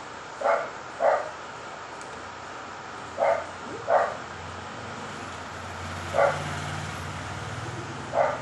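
A dog barking in the background: six short barks, mostly in pairs about half a second apart. A low hum comes up in the second half and stops near the end.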